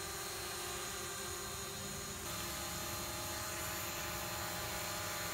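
DJI Mavic Pro quadcopter in flight, its propellers and motors giving a steady whine of several tones at once. About two seconds in the pitch shifts and it grows slightly louder as the rotors change speed.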